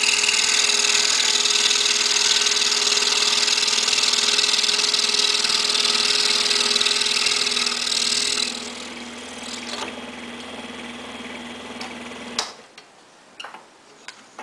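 Excalibur scroll saw cutting through hard maple, loud for about eight seconds, then running more quietly and switching off about twelve seconds in. A few light knocks follow as the cut-out piece is handled.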